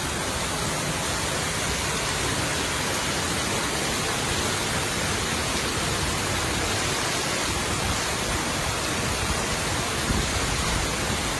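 Steady heavy rain: a dense, even hiss with no breaks or single drops standing out.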